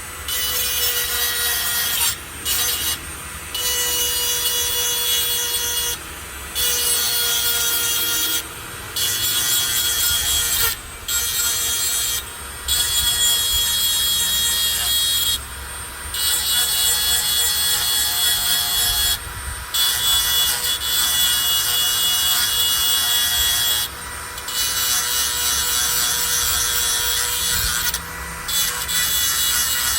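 Hedge trimmer blade teeth being sharpened, a harsh metal-on-metal scraping in runs of a few seconds with short pauses as the tool moves from tooth to tooth.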